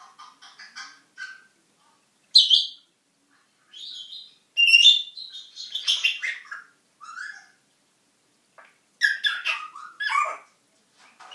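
African grey parrot chattering in short bursts of mixed calls, with gaps between them. It starts with soft babbling, then gives a loud high call about two and a half seconds in, a longer string of calls around five to six seconds in, and another loud burst near the end.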